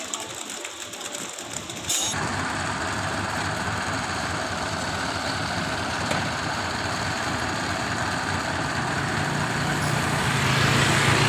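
Water running in the river for about two seconds, then a sudden switch to a concrete mixer truck's diesel engine running steadily. The engine grows louder near the end.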